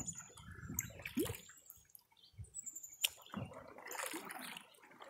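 Canoe paddle strokes in calm river water: soft, irregular splashes and drips as the blade dips and lifts, with a single sharp knock about three seconds in.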